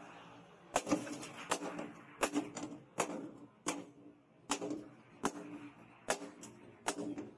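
Hand hammer striking a red-hot steel strip, made from an old bearing, on a steel post anvil. There are about a dozen blows, roughly one every three-quarters of a second, starting just under a second in, and each gives a short metallic ring.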